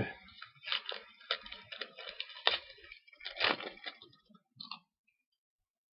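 Trading cards and a foil pack wrapper being handled: an irregular run of crinkles and clicks that stops almost five seconds in.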